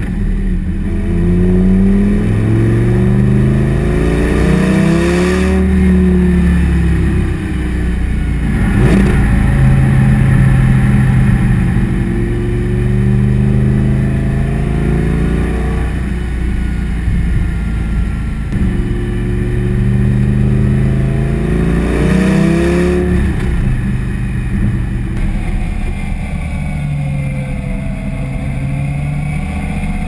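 Lamborghini Gallardo LP 570-4 Superleggera's 5.2-litre V10 exhaust, heard close at the tailpipe, pulling hard with the revs climbing and dropping back several times. There are short sharp bursts of noise as the revs fall, the loudest about nine seconds in.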